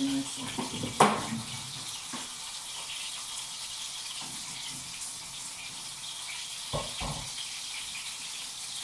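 Kitchen tap water running in a steady hiss, with a few knocks of pots and utensils: a sharp one about a second in, another soon after, and a quick pair near the end.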